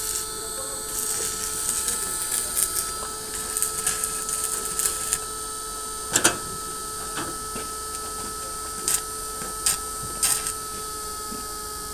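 Stick arc welding on a steel hinge pin: the arc crackles and sputters for about the first five seconds, then stops, leaving a steady electrical hum with a few separate sharp clicks.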